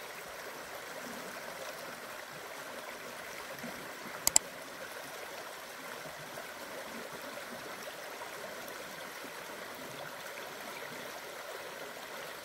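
A forest stream running over rocks, a steady rushing of water. About four seconds in, two sharp clicks in quick succession stand out above it.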